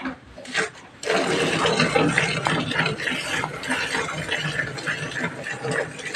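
Milk squirting into a pail as a cow is hand-milked fast, a continuous frothy hiss of streams that starts about a second in.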